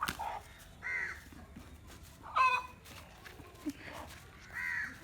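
Chicken squawking in a string of short calls, about five in all, the loudest about halfway through.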